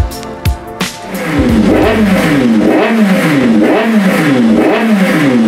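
Motorcycle engine revved repeatedly, its pitch rising and falling in quick blips more than once a second, starting about a second in.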